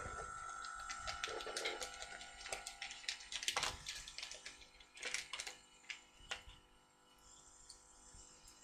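Scattered light clicks and taps of small objects being handled, fading toward the end, with a faint steady whine in the first few seconds.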